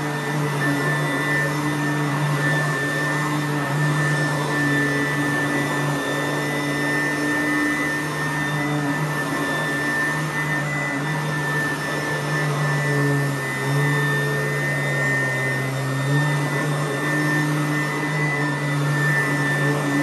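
Sanitaire upright vacuum cleaner running on carpet: a steady motor drone with a high whine over a rush of air, its pitch shifting slightly now and then as it is pushed back and forth.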